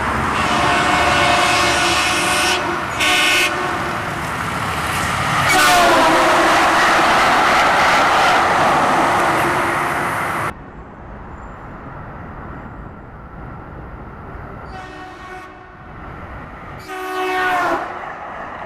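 Light-rail train sounding its horn in several blasts as it approaches a grade crossing, over the noise of the train on the rails. The level drops abruptly about ten seconds in, and the horn sounds again, louder, as the train passes close by near the end.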